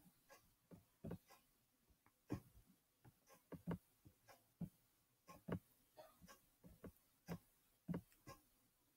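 Faint, irregular clicks of a computer mouse, two or three a second, as sticker colours are set one by one in an online Rubik's cube solver.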